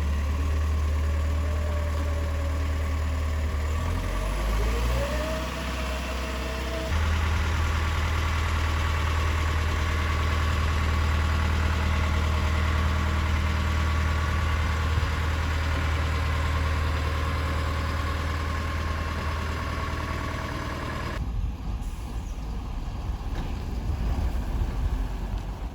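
Diesel engine of a Zeppelin ZM13 wheeled excavator running steadily with a deep hum. A rising whine climbs about five seconds in, and soon after the engine note steps up and holds. Near the end the sound changes abruptly to a rougher, wind-blown noise.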